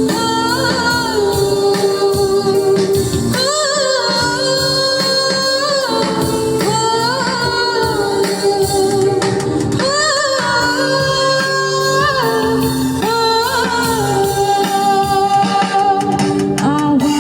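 Hindi Christian worship song: a voice singing long, held melodic lines over instrumental accompaniment.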